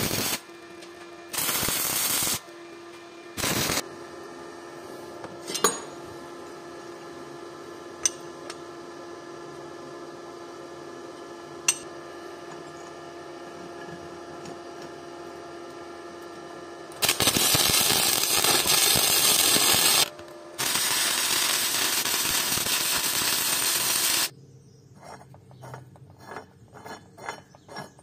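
Power tool run in short loud bursts, then for a few seconds at a time. Between runs there is a steady hum with a few sharp clicks, and a run of quick ticking comes near the end.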